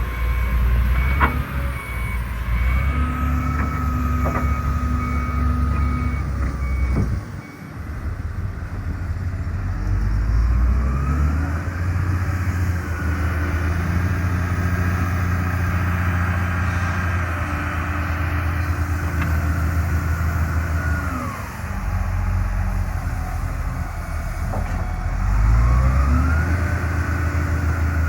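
Wheel loader's diesel engine working, revving up and dropping back several times. A reversing alarm beeps steadily for the first several seconds.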